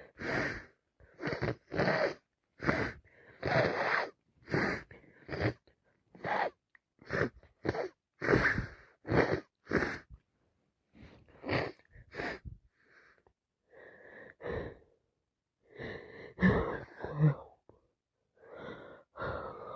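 A woman with a cold in a sneezing fit: quick repeated sneezes with sharp, gasping in-breaths between them, about two a second at first, then slower and weaker in the second half.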